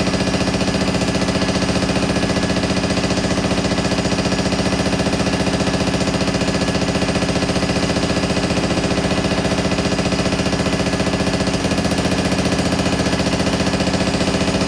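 Power hammer running steadily, its ram striking a sheet-metal panel in a fast, even stream of blows.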